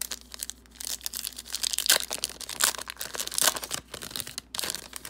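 A trading-card pack's plastic wrapper being torn open and crinkled by hand, a dense run of crackling rips for about four and a half seconds.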